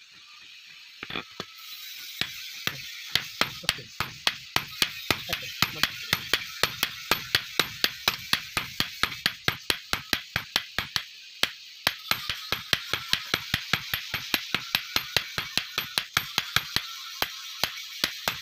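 Hand hammer striking a red-hot steel billhook blade on an anvil in quick, even blows, about three a second, with a brief pause a little past halfway.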